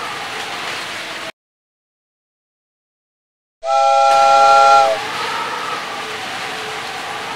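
After the sound cuts out for about two seconds, a loud whistle blast of several notes sounding together as a chord is held for about a second. A steady hiss runs before and after it.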